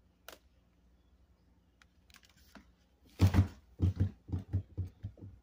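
Close-up chewing of freezer frost: a quick run of about eight loud crunches, roughly four a second, starting about three seconds in and fading toward the end, after a single light click near the start.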